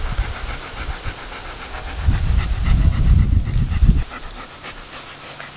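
German Shepherd panting close to the microphone, heaviest from about two to four seconds in.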